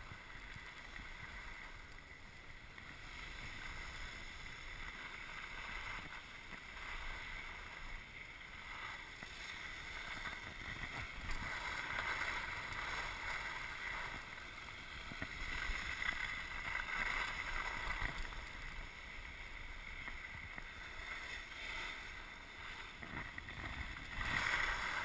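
Skis sliding and scraping on packed snow, a steady hiss that rises and falls, with wind on the microphone.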